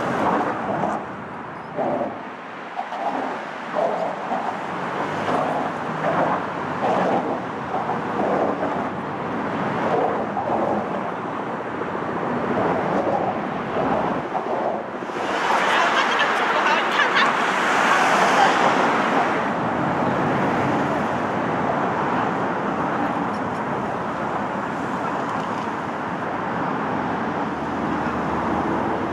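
Steady noise of road traffic on the bridge's roadway below the pedestrian walkway, with nearby walkers' voices in the first part. Just past the middle, a louder rushing swell lasts about four seconds.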